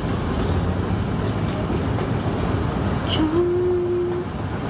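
Steady low rumble of a moving train, with a single steady tone held for about a second starting about three seconds in.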